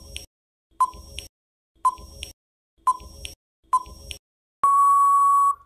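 Quiz countdown-timer sound effect: short beeping ticks about once a second, then one long steady beep of about a second near the end to mark time up.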